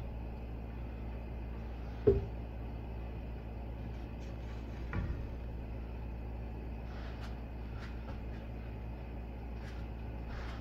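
Cooking oil poured into a large aluminium pot over a steady low kitchen hum, with a sharp knock about two seconds in and a softer one about five seconds in.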